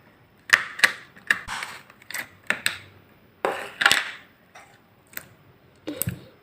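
Slime being squeezed and pressed, giving an irregular run of sharp crackling clicks and short hissy squishes with pauses between them.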